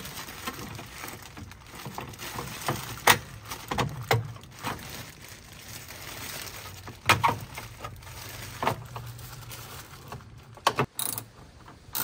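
Irregular plastic clicks and knocks as a washing machine's slatted plastic motor guard is handled and fitted back into place, with plastic-bag rustling from the gloved hand.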